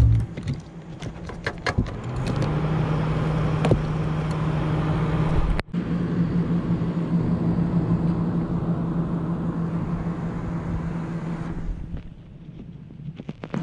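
A machine running with a steady, constant-pitched low hum. It breaks off for an instant about halfway and drops away near the end.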